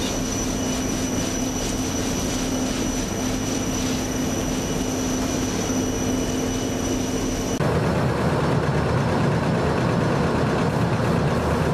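Airless paint sprayer running steadily, a constant mechanical drone with a held hum. About seven and a half seconds in it cuts abruptly to a deeper, slightly louder run.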